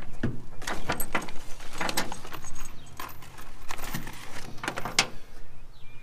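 Small metal parts being handled in a pickup bed while searching for a loose rail-kit spacer: a scatter of sharp clinks and knocks, several in the first second or so and a few more spread through the rest.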